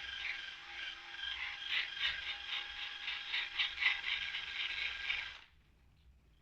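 Handheld electric power tool running on metal with a steady whine and irregular rattling and scraping, then switched off about five and a half seconds in.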